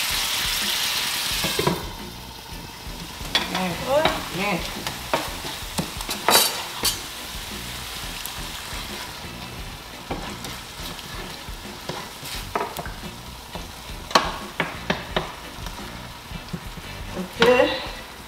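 Tomato sauce sizzling in a frying pan, louder for the first couple of seconds and then softer, while a wooden spoon stirs it with occasional light knocks against the pan.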